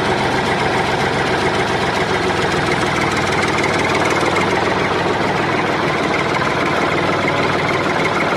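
An engine running steadily at idle, with an even, unchanging beat and no revving.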